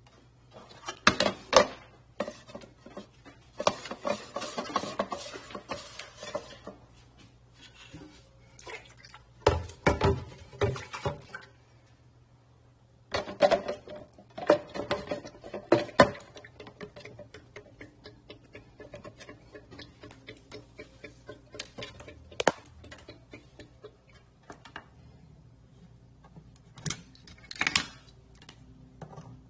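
Irregular knocks and clatter of hard objects being handled, coming in several bursts, over a low steady hum.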